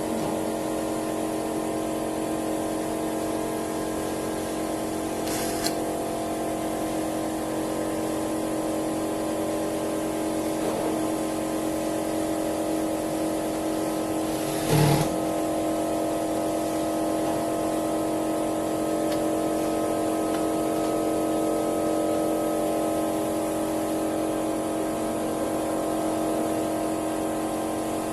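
A steady mechanical hum made of several held tones. A brief hiss comes about five seconds in, and a short loud knock, the loudest sound, comes about fifteen seconds in.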